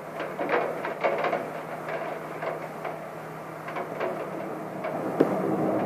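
Raindrops tapping irregularly on window glass and sill during a thunderstorm, over a steady low hum; the sound grows louder near the end as a rumble builds.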